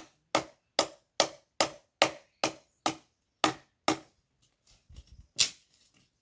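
Firewood being chopped by hand: a quick, even run of sharp strikes of a blade into wood, about two or three a second, then a few softer knocks and one last hard strike near the end.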